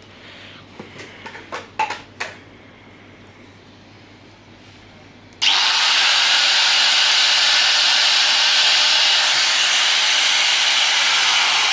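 A few clicks of handling, then about five seconds in a Total 900-watt 4-inch angle grinder switches on and runs with a loud, steady whine.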